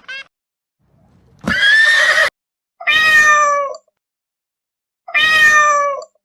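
Domestic cat meowing three times, each meow just under a second long, the last two falling in pitch at the end.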